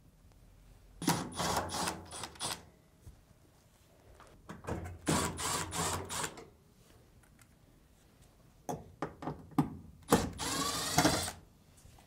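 Power screwdriver backing out the three screws of a dryer's lint duct: three short runs of the motor a few seconds apart, with a few clicks shortly before the last one.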